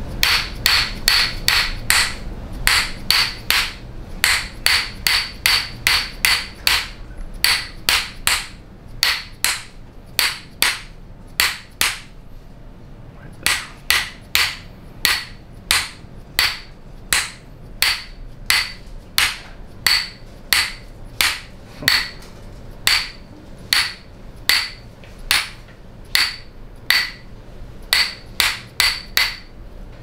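A mallet tapping a metal chiropractic adjusting instrument held against the upper back: repeated sharp strikes, each with a short metallic ring. The strikes come quickly, about three a second, at first, then more slowly after a brief pause near the middle. This is a percussive adjustment hammering down a raised area of the spine.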